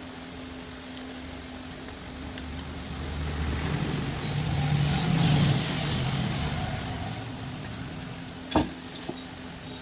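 A road vehicle passing by, swelling to its loudest about halfway through and fading away, over a steady low hum; a single sharp click near the end.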